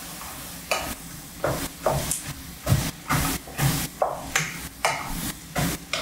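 Wooden spatula stirring flour into sweated celery, onion and leeks in a stainless steel sauté pan. It makes repeated scraping strokes, two or three a second, over a light sizzle.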